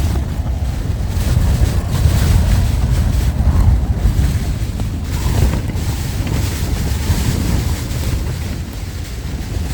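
Gale-force wind buffeting the microphone: a loud, deep rumble that swells and eases with the gusts.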